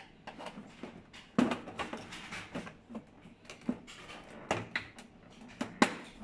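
Plastic clicks and knocks as the snap-clipped side cover of a Fuji Xerox DocuPrint CM225 printer is pried loose with a test-pen screwdriver, the clips giving way. The sharpest snaps come about a second and a half in and near the end.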